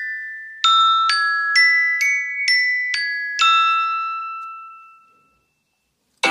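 iPhone ringtone of bright bell-like mallet tones: a run of seven struck notes, about two a second and mostly climbing in pitch, the last one ringing out and fading away. After about a second of silence, another ringtone with quick plucked notes starts right at the end.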